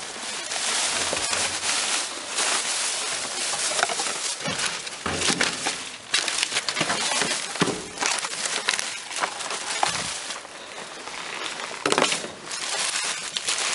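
Rummaging through trash in a dumpster: continuous crinkling and rustling of plastic and paper packaging, with scattered clicks and knocks as items are shifted.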